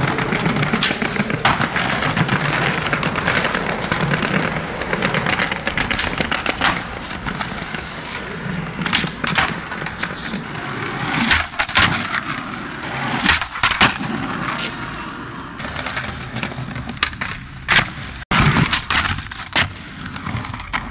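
Skateboard wheels rolling over concrete paving slabs, with sharp clacks of the board popping and landing every few seconds.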